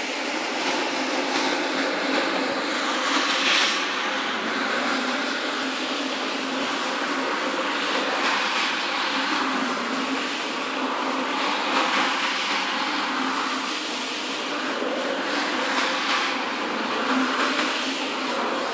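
Rotary carpet-scrubbing machine running steadily, its spinning brush scrubbing a foamy, wet shag carpet with a continuous motor-and-brush noise.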